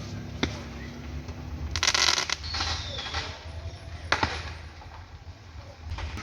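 Fireworks going off: single sharp bangs, a dense burst of rapid crackling about two seconds in followed by a short falling whistle, and another loud bang about four seconds in.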